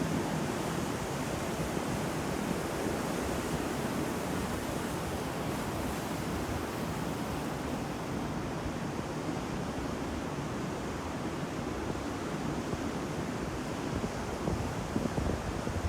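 Ocean surf: waves breaking and washing ashore in a continuous rush, with wind noise on the microphone.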